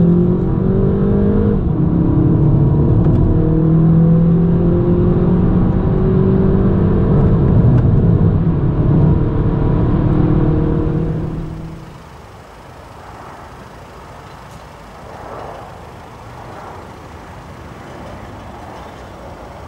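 Turbocharged 2.0-litre four-cylinder of an Audi A1 40 TFSI under full-throttle acceleration, heard from inside the cabin. The S tronic gearbox upshifts about a second and a half in, then the revs climb slowly in one gear. About twelve seconds in the engine sound drops off sharply to a faint background.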